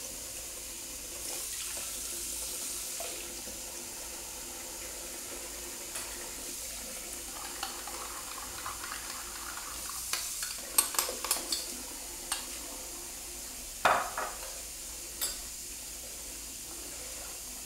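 Kitchen tap running steadily into a sink of water. A spoon clinks against a ceramic teacup several times around ten to twelve seconds in, and there is one louder knock just before fourteen seconds.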